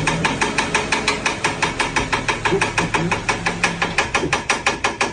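Car engine running with a loud, rapid, even knocking, about eight or nine knocks a second, over a low steady hum, cutting off suddenly at the end. It is the noise from the motor that the occupants are trying to track down.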